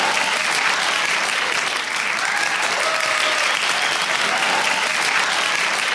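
Many people clapping steadily in sustained applause.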